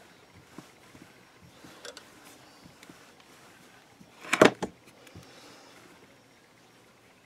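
Hands rolling a polymer clay log on a smooth sheet: faint soft rubbing and light ticks, with one brief, louder sliding scrape about four seconds in.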